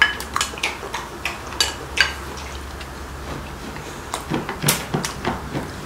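Spoon and chopsticks clinking and tapping against bowls and dishes during a meal: about a dozen light, irregular clicks, some with a short ring.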